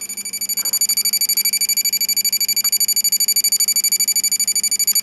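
Electronic sound effect from the battery-powered 1993 Mighty Morphin Power Rangers Dragonzord toy, switched on so its chest lights up: a high, shrill electronic tone pulsing very fast and evenly, like an alarm. It gets louder just under a second in.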